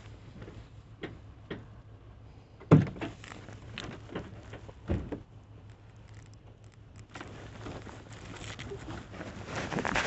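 A few scattered knocks and clicks, the sharpest about three seconds in and another about two seconds later, with lighter ticking near the end.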